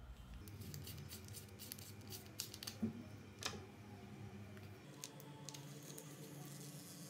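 Faint clicks and ticks of a small plastic-and-metal facial massager being handled in the fingers, with one sharper click about three seconds in.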